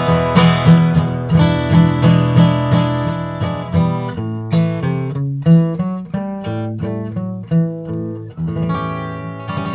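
Martin D-18-style dreadnought acoustic guitar with an Adirondack spruce top and mahogany back and sides, played fingerstyle: picked melody notes over a ringing bass. The notes thin out and slow in the middle, and a fuller chord rings out near the end.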